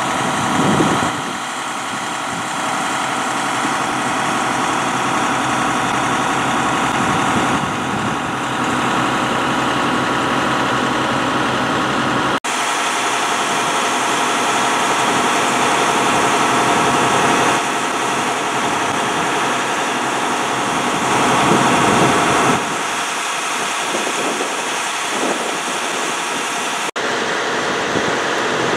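Diesel engines of parked fire apparatus idling, a loud, steady drone.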